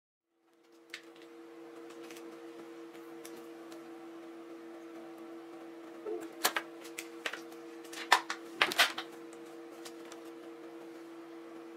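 Sharp plastic-and-metal clicks of a USB-B cable plug being worked out of the socket on an Arduino Uno board, a handful of them between about six and nine seconds in, the loudest near the end. Under them runs a steady low hum.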